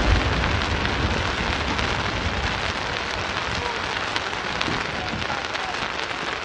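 Aerial firework shell's falling glitter stars, a dense, steady crackle of many fine pops that thins slowly, with a low rumble from the burst at the start.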